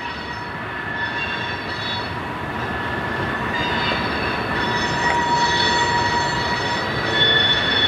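Freight train cars rolling past, the wheels squealing in several steady high tones over the rumble of wheels on the rails.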